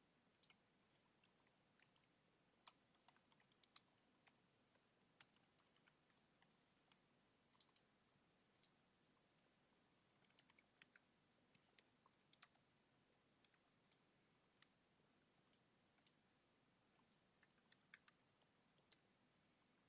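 Faint, scattered clicks of typing on a computer keyboard, with mouse clicks, some single and some in quick little runs, against near silence.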